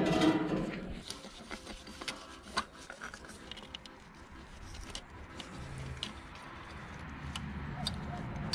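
A steel wheelbarrow set down with a loud metallic thump and brief ringing, followed by scattered small clicks and taps of hands and tools removing a motorcycle carburettor.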